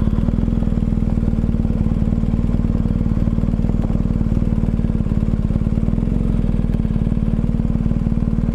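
Motorcycle engine running steadily at low revs, an even fast pulsing with no change in pitch, as the bike is ridden slowly through.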